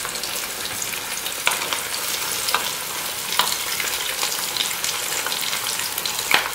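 A whole battered onion pakoda deep-frying in hot oil in a kadhai, sizzling steadily while hot oil is ladled over its top. A few sharp clicks cut through, the loudest near the end.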